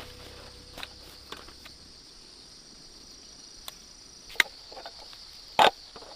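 Insects chirring steadily at a high pitch in the forest, with a few faint clicks and two sharp knocks, one about four seconds in and a louder one near the end.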